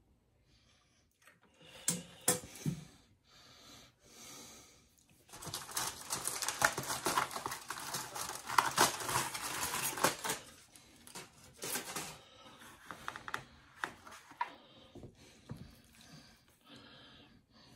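Chef's knife chopping chives on a wooden cutting board: a fast run of taps lasting about five seconds in the middle, with a few separate knocks before and after.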